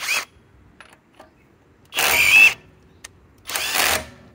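Hercules 2200 inch-pound cordless impact wrench run in three short bursts on a lug nut, the motor whining over the hammering; a brief blip at the start, then two longer bursts, the first of these the loudest.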